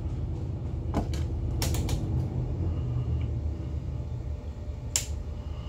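Steady, slightly pulsing low rumble of a superyacht's engines running at manoeuvring speed, with a few sharp clicks about a second in and just before two seconds, and one sharper click about five seconds in.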